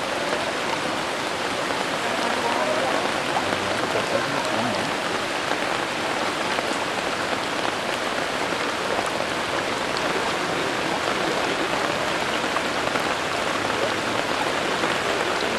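Heavy rain falling steadily on floodwater, an even hiss with no let-up.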